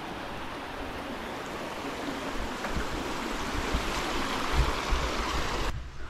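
Steady rush of a flowing monsoon stream, with low wind buffeting on the microphone. Near the end it changes abruptly to a duller, quieter background.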